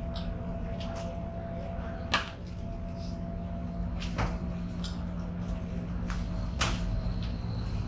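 Metal spatula knocking sharply on a large flat iron murtabak griddle three times, a couple of seconds apart, the first knock the loudest. A steady low hum runs underneath.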